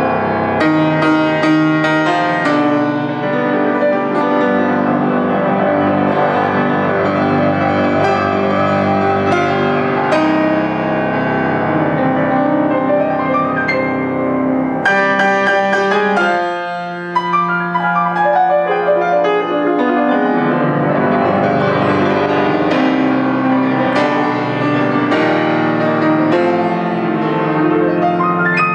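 Yamaha C5 grand piano played solo, with a steady flow of chords and melody. The playing eases off briefly a little past halfway, then picks up again.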